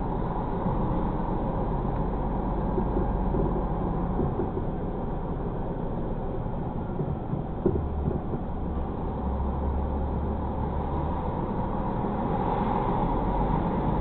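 Tractor-trailer truck driving, heard from inside the cab: a steady low engine and road drone, with a single short knock about eight seconds in.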